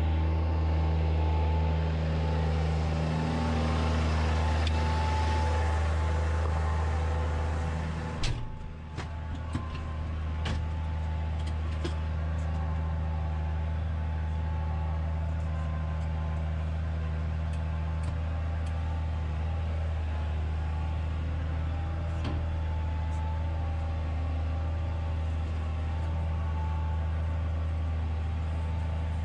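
Massey Ferguson tractor's diesel engine running steadily under load while ploughing, a low even hum. The level dips briefly about eight seconds in, and a few faint clicks follow.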